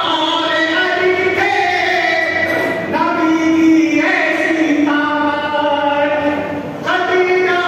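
Devotional singing in long held notes, each line changing pitch every one to two seconds.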